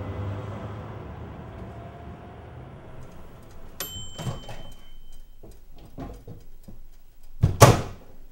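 A low steady hum fades out. Then comes a string of sharp clicks and knocks, one with a brief high ring about four seconds in, and the loudest is a clatter near the end.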